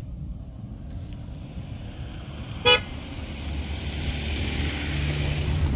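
A vehicle horn gives one short, loud toot about three seconds in, over a running engine's low rumble that grows louder toward the end.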